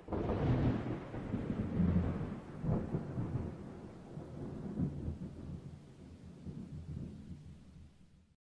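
Thunder crashes in suddenly and rolls in several swells over a hiss of rain, then slowly fades and cuts off shortly before the end.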